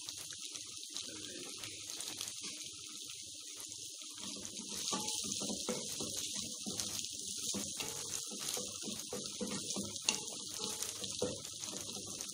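Sliced onions and ginger-garlic paste sizzling in hot oil in an enamel pot, with a steady hiss. A wooden spatula stirs and scrapes against the pot, more busily from about four seconds in.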